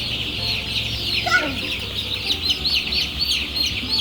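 A crowded flock of four-week-old chicks peeping: a dense, continuous chorus of short, high, falling cheeps. One louder, lower call stands out about a second in.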